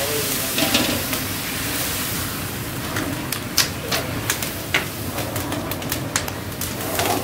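Wood fire crackling under a large steaming cooking pot while a long metal ladle stirs it: a steady rush with scattered sharp clicks and knocks.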